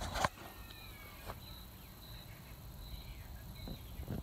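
Small birds chirping in the background: a short high note repeated roughly once a second, with a few softer sliding chirps in the first second or so. A sharp knock comes right at the start and a lighter click about a second in.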